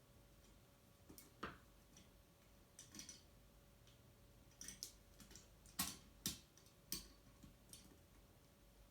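Irregular sharp clicks and light taps of screws and a horn strobe's mounting bracket being handled and adjusted, a dozen or so in all, most of them in the second half, over a faint steady hum.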